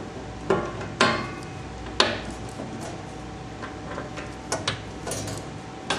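Metallic clicks and knocks from handling a circular chart recorder: three sharp clicks in the first two seconds, each with a short ring, then a scatter of lighter clicks and taps over a faint steady hum.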